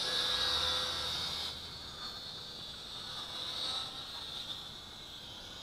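SJRC X300-1C quadcopter's motors and propellers whining overhead, the steady high pitch swelling and easing with throttle. It turns fainter about a second and a half in as the quad flies farther off.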